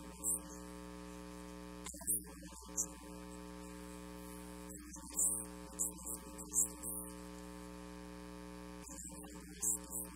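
Steady electrical mains hum in the sound system, with short faint hissy blips several times over it.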